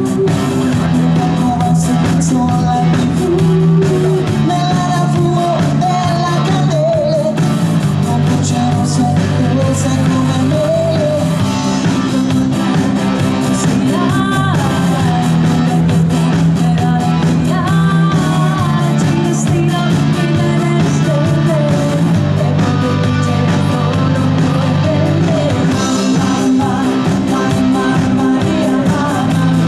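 Live band playing a rock song: a woman singing over electric guitar, bass guitar and drum kit.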